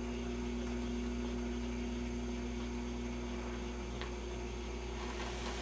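Steady electrical mains hum over a faint hiss.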